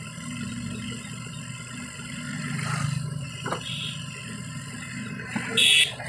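JCB 3DX backhoe loader's diesel engine running steadily, swelling in the middle as the backhoe arm works, with passing road traffic mixed in. A short, loud, high-pitched beep sounds near the end.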